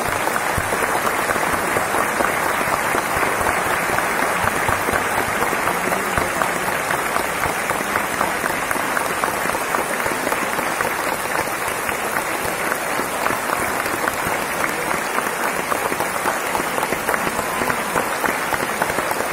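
Large audience applauding steadily: many hands clapping together in a dense, unbroken patter.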